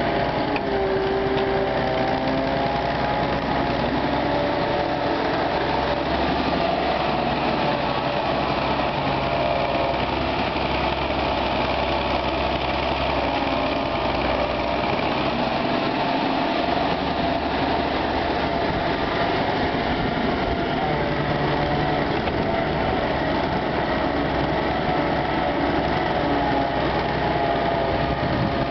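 Diesel engine of an EO-4121 crawler excavator running steadily under working load while the hydraulic boom and bucket dig, its pitch wavering slightly as the load changes.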